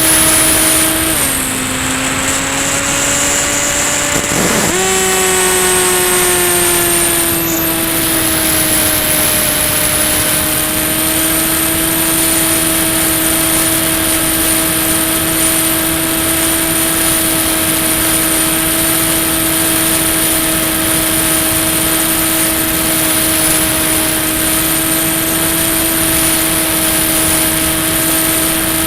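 Electric motor and propeller of a Ranger EX FPV plane whining steadily in flight. The pitch drops about a second in as the throttle eases, then climbs back near the five-second mark and holds steady.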